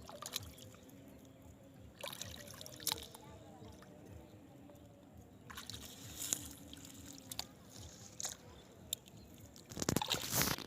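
Water sloshing and splashing in short, scattered bursts, with the loudest cluster of splashes near the end.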